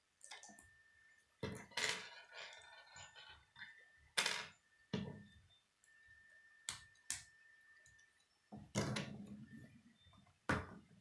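Plastic K'nex rods, connectors and gears clicking and snapping together in the hands, with knocks of parts handled against a wooden table. About nine sharp clicks and knocks, spaced unevenly.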